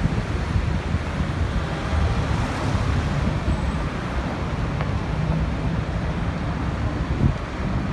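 Road traffic on a busy city street: a steady mix of engine and tyre noise from passing vehicles, heaviest in the low rumble.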